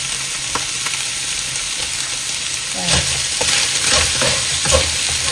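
Kale and sliced pork sizzling steadily in a hot coated wok. About three seconds in, a spatula starts tossing the stir-fry, with several scraping strokes and knocks against the pan.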